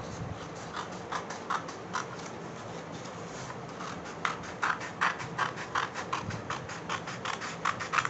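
Scissors snipping through a folded sheet of A4 paper along the fold: a few spaced snips at first, then a faster run of snips from about halfway through.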